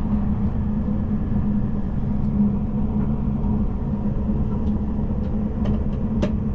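Steady low rumble and hum of the Tobu Spacia X limited express train running, heard from inside the passenger cabin, with a couple of light clicks near the end.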